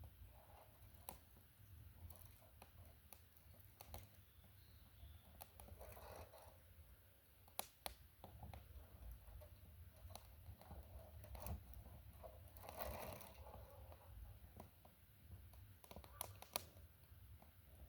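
Near silence: faint scattered clicks and crinkling rustles over a low steady rumble.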